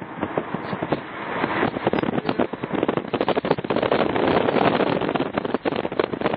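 Wind buffeting the microphone of a moving car, a dense rough crackling over the noise of the ride.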